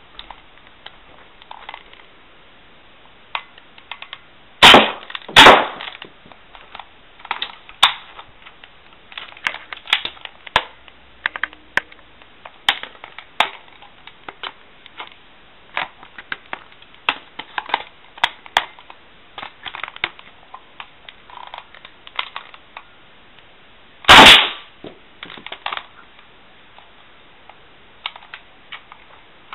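Spring-powered Nerf Tech Target blasters with replaced internals (a cut-down K26 spring) and CPVC barrels being fired. There are three loud sharp pops, two in quick succession early on and one much later, among many small clicks and knocks from priming and handling.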